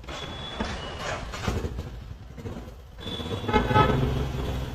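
Street traffic with engines running, and a vehicle horn honking briefly about three and a half seconds in.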